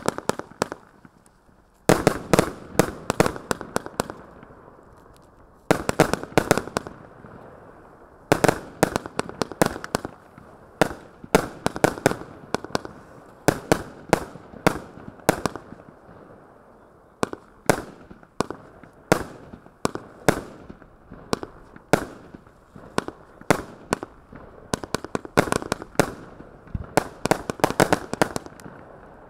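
A 131-shot mixed-tube consumer firework cake firing: shots launch and burst in quick volleys of sharp bangs, several a second. There are brief lulls near the start.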